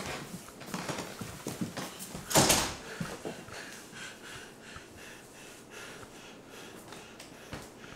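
A door being handled in a small room: a short loud rush about two and a half seconds in, then soft scattered knocks and clicks.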